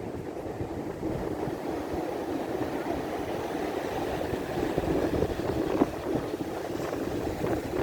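Sea waves washing ashore in a steady rush, with wind rumbling on the microphone.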